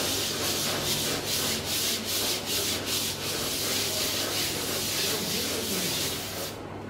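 Sandpaper held by hand against the inside braking surface of a truck brake drum spinning on a lathe: a steady, high scratching that pulses about three times a second, over the lathe motor's steady hum. The sanding stops shortly before the end, leaving the hum.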